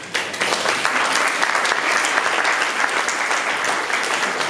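Audience applauding, starting abruptly and keeping up steadily as a dense patter of many hands clapping.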